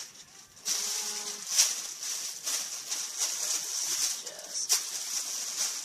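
Rustling and crinkling of packaging as items are handled, with a couple of sharp crackles.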